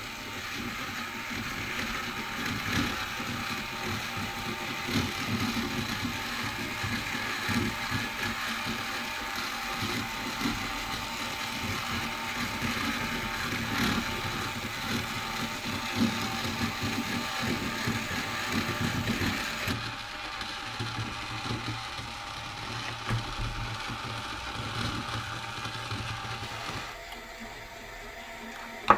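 3D-printed gear-driven turntable running, its plastic gears meshing in a steady mechanical whir. The sound changes about two-thirds of the way through and grows quieter near the end.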